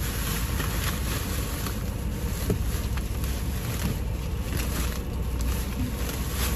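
Plastic shopping bags rustling and crinkling as they are handled inside a car, with a few light clicks, over a steady low rumble.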